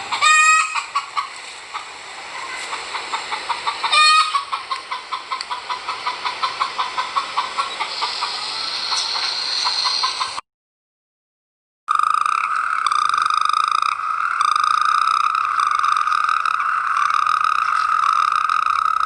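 Hens clucking in a rapid series, with a rooster crowing twice: once at the start and again about four seconds in. After a short silence, toads call in a steady pulsing trill.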